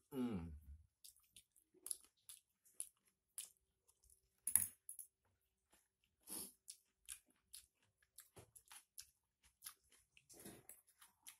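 Close-up mouth sounds of a person chewing a mouthful of pecel with noodles, with wet smacks and small crunches, and spoon and fork clicking against a plastic bowl; the sharpest click comes about four and a half seconds in. A short low belch falls in pitch right at the start.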